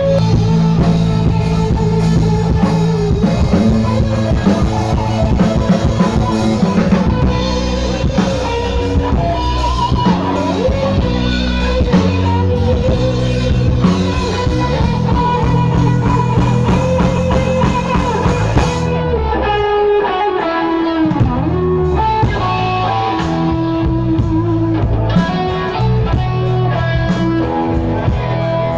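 Background music: a rock track with guitar and drums.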